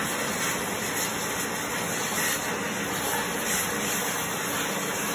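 1965 Compact vacuum cleaner running steadily, its suction making an even rushing hiss of air.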